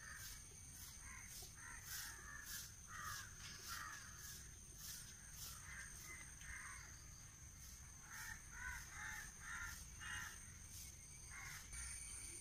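Crows cawing repeatedly in short bursts of calls, over a faint steady high-pitched insect drone.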